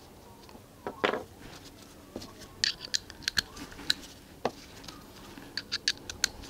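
Light, sharp metallic clicks and ticks of hand tools being handled on a bicycle handlebar clamp, coming in quick clusters, with a soft knock about a second in.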